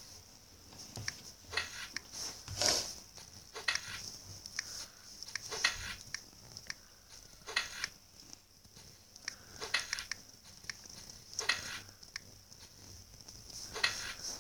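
Light taps and clicks of typing on a tablet's touchscreen keyboard, coming irregularly about every second or two, over a steady faint hiss.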